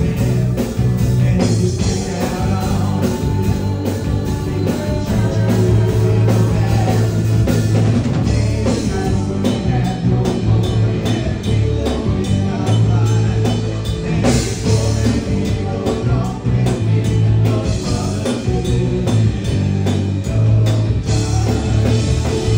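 A rock band playing live and loud: drum kit keeping a steady beat under electric guitar, bass guitar and vocals.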